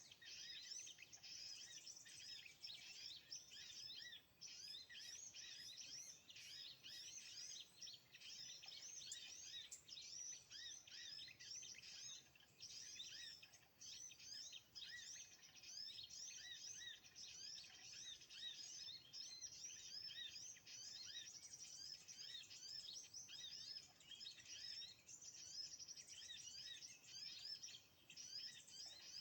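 Faint, dense, continuous high-pitched twittering and chirping of small birds, many short rapid notes overlapping without a break. This is lure calls for kemade and other small birds used at a lime-stick trap.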